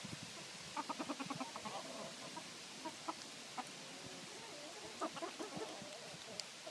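Domestic chickens clucking: a quick run of short clucks about a second in, then scattered single clucks.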